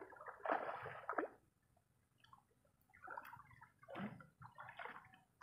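Water splashing and sloshing at the shoreline as a hooked fish thrashes at the surface and is scooped into a landing net, in two spells: one in the first second or so and another from about three to five seconds in.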